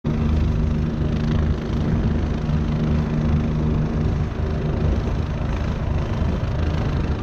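Helicopter running steadily as it lifts off, a continuous low drone of rotor and engine.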